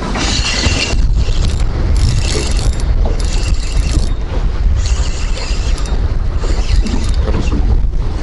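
Spinning reel cranked in short bursts of about a second each with brief pauses between them, a stepped retrieve, over a steady heavy rumble of wind on the microphone.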